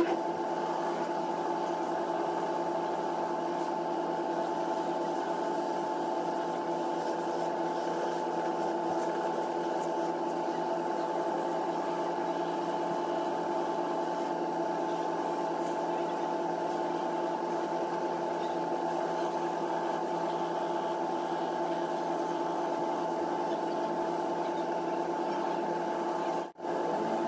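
Shoe repair finishing machine running steadily, its motor and spinning sanding drums and brush wheels giving an even hum. The sound drops out briefly near the end.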